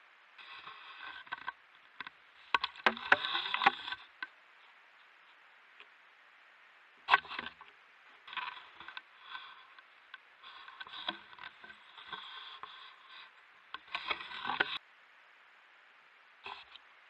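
Close handling noise of hands working fishing tackle and a small caught fish: bursts of rustling and scraping, on and off, with a few sharp clicks.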